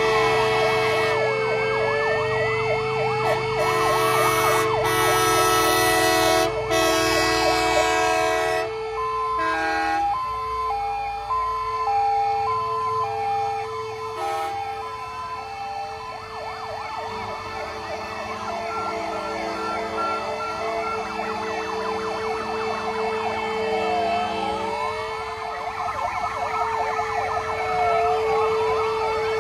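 Several emergency-vehicle sirens sounding together, their wailing pitches sliding up and down across one another over a steady held tone. A two-note hi-lo pattern comes in around ten seconds in, and long loud blasts stand out in the first several seconds.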